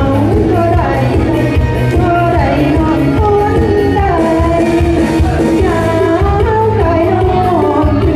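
A woman singing into a microphone over a loud pop backing track with a steady beat and bass.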